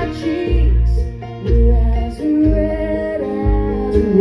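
Bluegrass band playing live, with upright bass notes about once a second under acoustic guitar and a sliding lead melody line.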